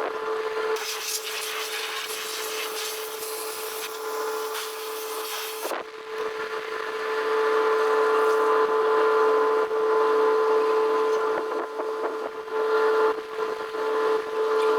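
Pressure washer running with a steady hum and a hissing spray as the oily inside of a truck intercooler is washed out. The hiss is strongest for the first few seconds, then eases while the hum holds steady.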